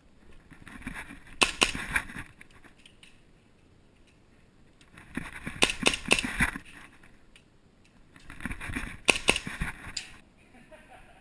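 Airsoft gunfire: three bursts of sharp cracks, each with several shots in quick succession, about a second in, around six seconds and around nine seconds. Rustling movement comes before each burst.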